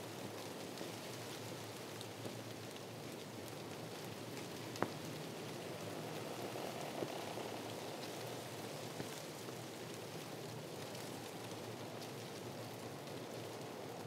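Wind blowing through palm fronds: a steady, dry rustle with no let-up. A single sharp click stands out about five seconds in, with a couple of fainter ticks later.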